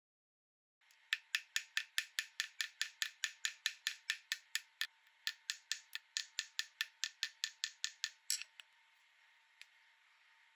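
A small steel-headed hammer tapping a pin in a silver chain link on a steel bench block: about four quick, light, ringing taps a second for some seven seconds, with a short break near the middle. They stop suddenly, and one last faint tick follows.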